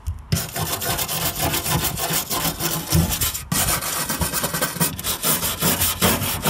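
Hand wire brush scrubbed hard back and forth over a car's bare sheet-steel floor pan in rapid strokes, scouring off surface rust. It starts just after the beginning and pauses briefly about halfway through.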